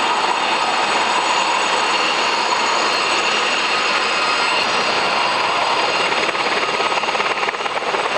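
A formation of military helicopters flying past at low height: steady, loud engine and rotor noise.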